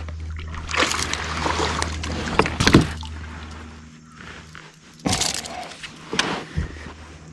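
A hooked small largemouth bass splashing at the surface as it is reeled to a kayak and lifted out of the water, over a steady low hum that stops about four seconds in. A few sharp knocks follow.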